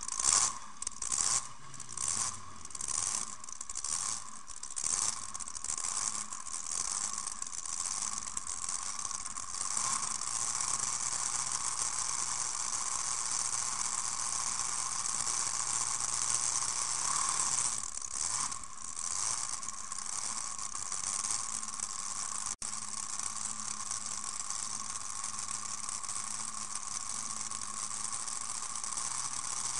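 Pulling tractor's engine idling, heard through a camera mounted on the machine, with a steady rattle. In the first few seconds it surges in short regular pulses about every two-thirds of a second, then settles to an even idle.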